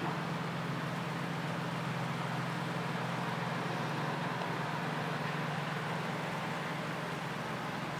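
Steady background hum and hiss with no distinct events: a constant low hum under an even hiss, with nothing else standing out.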